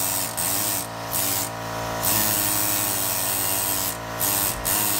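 Compressed-air tool worked at the front of a 302 V8, its hissing rush switching on and off in several short bursts and one longer run of about two seconds, over a steady low hum.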